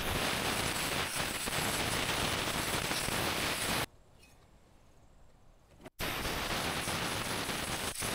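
Steady rushing noise with no distinct knocks or tones. It cuts off abruptly about four seconds in and comes back just as abruptly about two seconds later.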